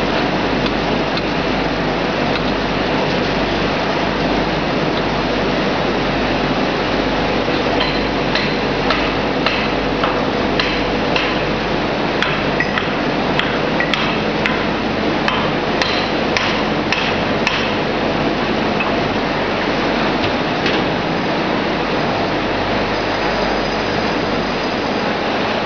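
Small screw oil press and mill machinery running steadily. Through the middle, a run of about a dozen sharp knocks, hammer-like, one or two a second.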